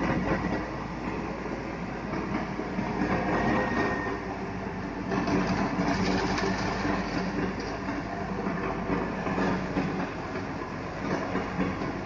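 Hino concrete mixer truck running steadily, its diesel engine driving the rotating drum as it discharges concrete.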